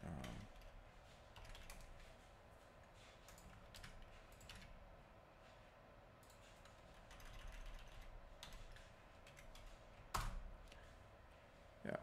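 Faint typing on a computer keyboard: a scatter of light key clicks, with one louder click about ten seconds in.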